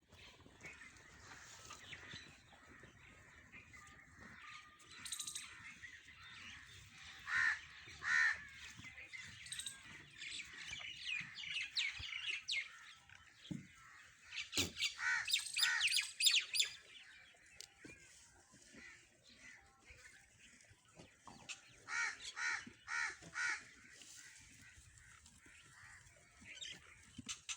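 A bird calling in bouts of repeated calls: a pair, then a quick run of calls, then four evenly spaced calls near the end, with fainter calling in between.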